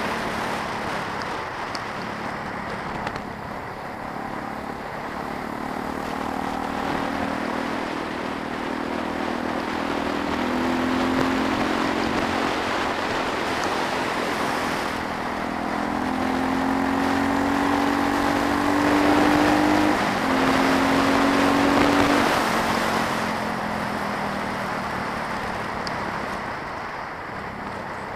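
Suzuki DR350SE single-cylinder engine running on the road, its pitch rising as it accelerates twice, about a third of the way in and again later, and loudest about three-quarters through, over a steady rush of wind noise.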